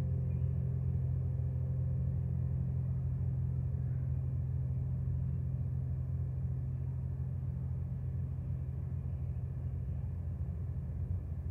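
Carillon bells dying away after the last notes, fading out over the first couple of seconds, over a steady low rumble that continues throughout.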